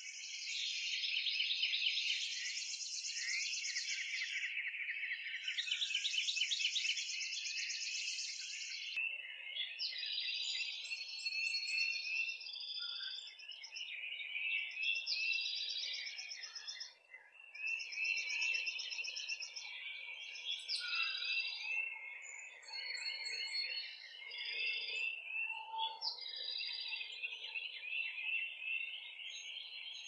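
A dense chorus of many songbirds singing and chirping over one another, with rapid trills and repeated chirps. The mix changes abruptly about nine seconds in.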